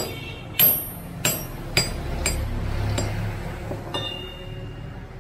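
Hammer blows on steel: a run of about six sharp metal-on-metal strikes, roughly one every half second and getting lighter, as parts of an angle grinder's gear and spindle assembly are knocked on a steel block. The last strike leaves a short ringing tone.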